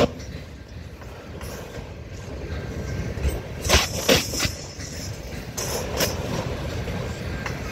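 Freight train of autorack cars rolling slowly past, with a steady low rumble. Sharp wheel clacks come as each set of wheels passes: three close together a little before four seconds in and two more near six seconds in.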